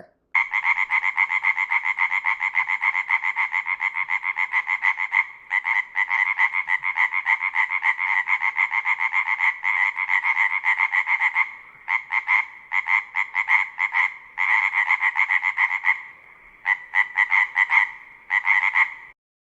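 Frog croaking in long runs of rapid, evenly repeated pulses, with short pauses between the runs.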